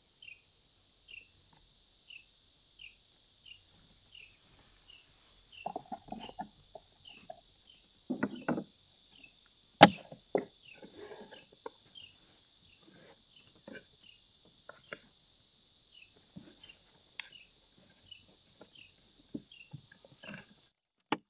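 Plastic handling knocks and one sharp snap about ten seconds in, as an OEM mirror is pushed into its plastic housing on a Sea-Doo Spark. Underneath is a steady insect drone with a regular chirp about twice a second.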